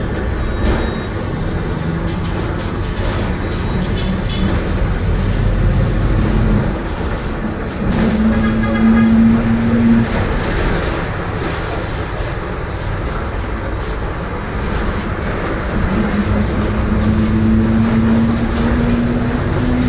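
Mercedes-Benz OF-1721 bus running at low engine revs with a low rumble, and a whine from its noisy differential that comes in about eight seconds in and again from about sixteen seconds on, rising slightly in pitch the second time.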